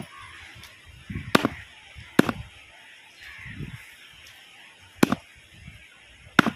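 A long knife chopping through a giant grouper's head on a wooden board. Four sharp blows, each landing with a dull thud on the wood, come one to three seconds apart.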